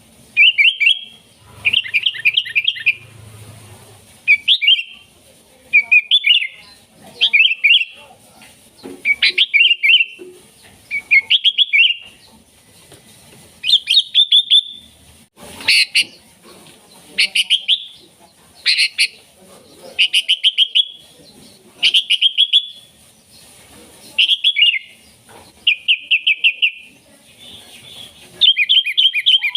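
Sooty-headed bulbul singing loudly: short, bubbly phrases of quick notes, one about every second and a half, repeated over and over, crowding closer together near the end.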